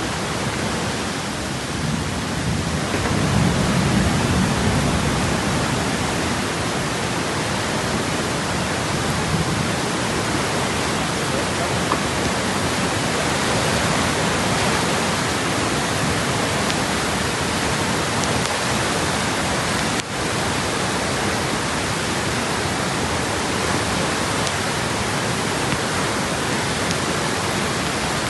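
Fast-flowing river water rushing, a loud, steady wash of noise.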